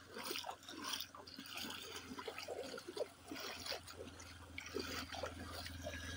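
Footsteps wading through shallow floodwater, irregular splashes with each step. A low engine hum from an approaching motorcycle grows in the last couple of seconds.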